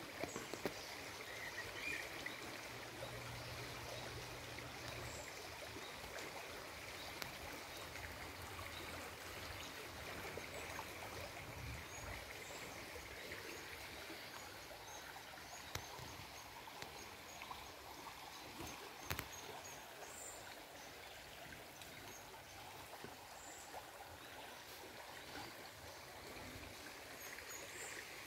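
Faint, steady trickle of a shallow stream running over pebbles.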